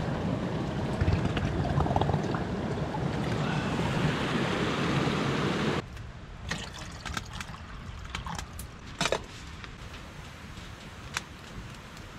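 Water poured from a plastic water bottle into a metal kettle, a steady splashing pour that cuts off suddenly about six seconds in. After it, a few faint clicks and crackles from the wood fire in a small camp stove.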